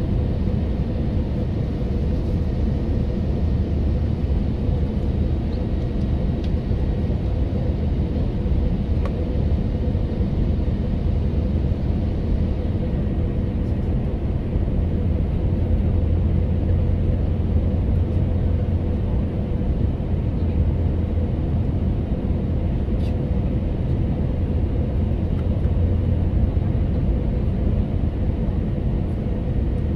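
Airbus A321 airliner on final approach, heard inside the cabin: a steady low rumble of engine and airflow noise with a faint constant hum.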